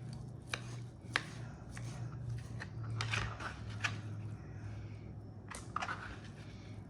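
Food being cut and handled on a cutting board: a few sharp knife clicks, then scattered crackly handling sounds as turkey slices are cut and put into a bowl, over a steady low hum.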